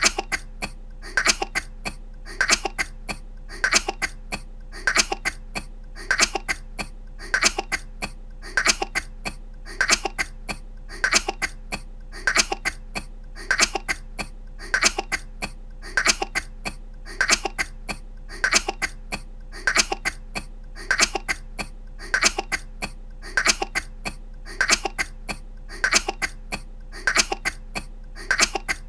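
A woman coughing in quick clusters of two or three short coughs. The same cluster repeats at a very even rhythm, about once every second and a quarter, as a looped recording.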